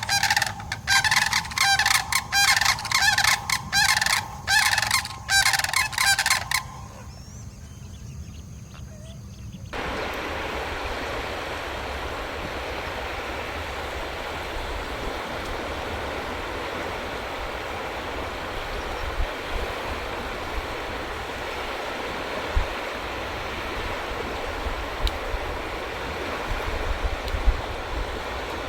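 A bird giving loud calls in a quick pulsing series for about six and a half seconds. After a short quieter gap, a steady even rushing noise with no calls takes over from about ten seconds in.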